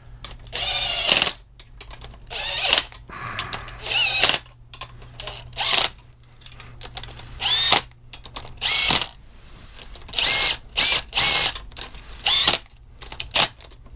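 Small power driver running bolts down into an engine in about a dozen short bursts, its pitch rising at the start of several bursts; the bolts are only being snugged, not yet torqued.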